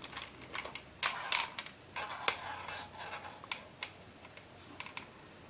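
A ball bearing rolling and clicking along the plastic tracks inside an Intellect Ball maze sphere as the sphere is tilted and turned, giving irregular light ticks and a few short rattling runs.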